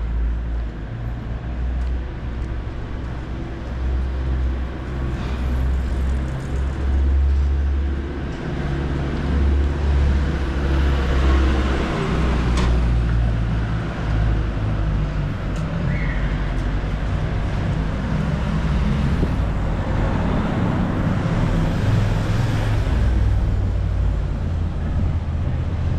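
Road traffic: the engines of passing vehicles rumble steadily, swelling louder several times as they go by.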